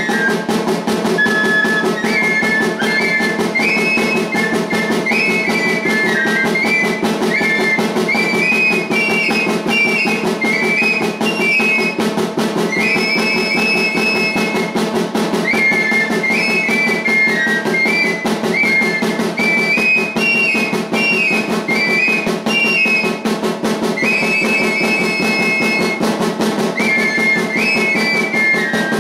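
Pipe-and-tabor music for the sonajeros dance: two cane flutes play a stepping, repeating melody together, each player keeping a fast, steady beat on a small hand-held drum struck with a stick.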